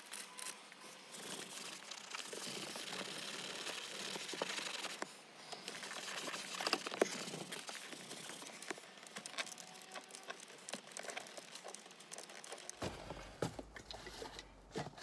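Cloth rubbing and wiping over a leather car seat, with crinkling handling noise and scattered small clicks. Near the end, rummaging in a cardboard box of bottles and cables.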